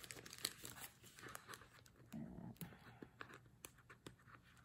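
Faint crinkling and crackling of white paper wrapping being slid and pulled off a small cardboard gift box, in many small scattered crackles. A brief murmur of voice about halfway through.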